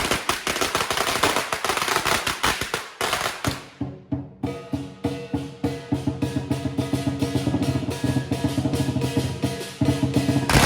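A string of firecrackers going off in a rapid crackle for about the first three and a half seconds; after a brief lull, Chinese lion-dance drumming starts: a large drum beaten in quick, even strokes with cymbals and gong ringing over it.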